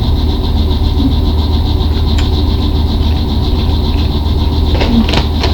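Steady low mechanical hum throughout, with a few sharp crunches near the end from potato chips being chewed.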